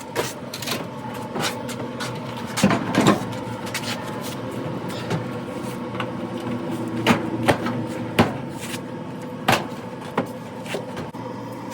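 Irregular knocks and clatter of the dryer's metal panels and parts being handled during disassembly, with a cluster of louder knocks about three seconds in, over a steady faint hum.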